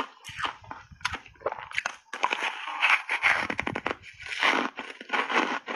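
Reshaped foam ice coated in matcha powder being bitten and chewed, heard close to the mouth: continuous crunching with a quick run of sharp cracks about halfway through.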